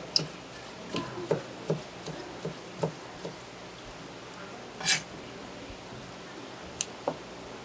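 Chef's knife chopping raw sea cucumber on a plastic cutting board: irregular soft knocks of the blade meeting the board, about two a second for the first three seconds. A louder brief hiss-like sound comes about five seconds in, and two sharp clicks near the end.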